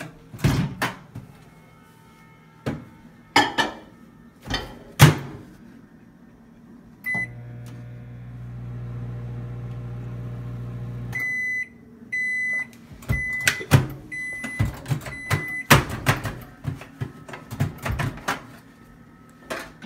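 Microwave oven in use: knocks and clicks of its door and keypad, a short keypad beep, then the oven running with a steady low hum for about four seconds. The hum stops with a run of high beeps signalling the end of the heating cycle, among more knocks and clatter as the door is opened.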